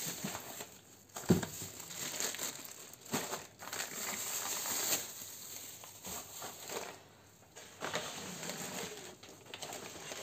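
Plastic grocery packaging and bags crinkling and rustling as items are picked up and moved about, with a louder bump about a second in.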